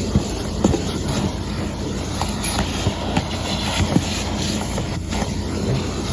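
Car on the move: a steady road and wind rumble with scattered light knocks and rattles over the road surface.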